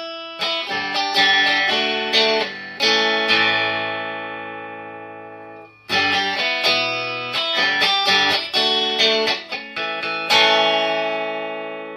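Clean electric guitar on its middle pickup, played through a small amp with no reverb or distortion. It plays a short phrase of picked notes and chords that ends on a chord left to ring and fade. The phrase starts again about six seconds in and ends on another ringing chord near the end.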